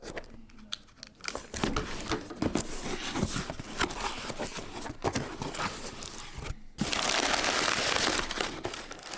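Shopping packaging being handled and unwrapped: irregular crinkling and crackling, then a longer continuous rustle about seven seconds in.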